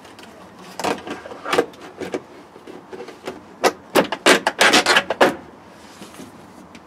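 Plastic B-pillar trim of a 1988 Austin Maestro being handled and pushed into place: a series of sharp clicks and knocks, thickest between about three and a half and five and a half seconds in.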